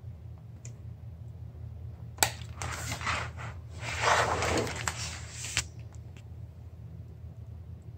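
Vinyl cove base being worked with a utility knife: a sharp click about two seconds in, then about three seconds of scraping and rubbing as the strip is cut and flexed, ending in another click. A steady low hum runs underneath.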